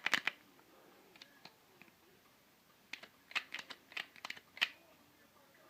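Adjustable wire-stripping tool clicking as it is handled and set, in quick clusters of sharp clicks: a short burst at the start and a run of about eight clicks from about three seconds in.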